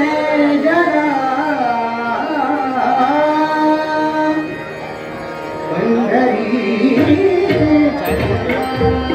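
A male singer sings a Marathi abhang (devotional song) in long, held, ornamented phrases over a steady harmonium. Tabla strokes come in strongly about six seconds in.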